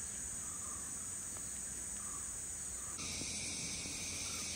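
Steady high-pitched insect chorus. About three seconds in it changes abruptly to a louder, broader buzz.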